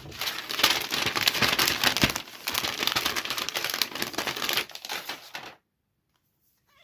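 Packaging being handled and crinkled during an unboxing, a dense crackling rustle that stops suddenly about five and a half seconds in.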